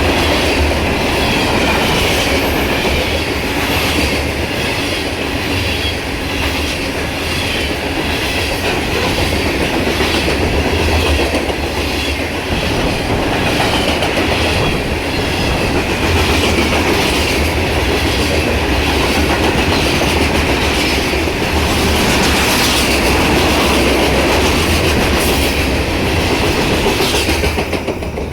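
Grain train's covered hopper cars rolling past at track speed: steady rumble of steel wheels on rail with a regular clickety-clack as the wheels cross the rail joints.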